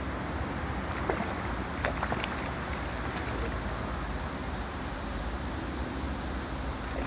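Steady wind buffeting the microphone, a low rumbling hiss, with a few faint clicks between about one and two and a half seconds in.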